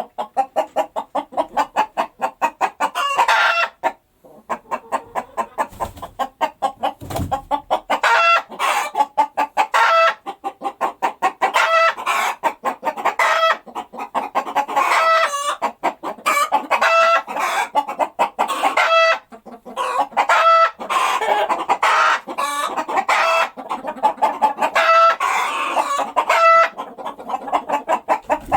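Hen's egg-laying cackle: rapid runs of short clucks broken by longer drawn-out calls about once a second, the call a hen makes just after laying an egg.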